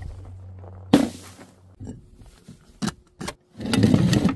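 A sharp smack about a second in as a balloon lands and bursts, then a few light knocks. Near the end comes a rattling rumble as a glass jar packed with rubber bouncy balls rolls down a wooden ramp.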